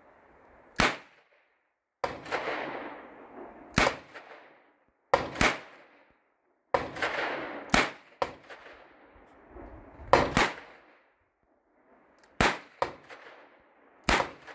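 A .22 revolver firing single shots in a slow string, about one to three seconds apart: sharp cracks, roughly eight in all.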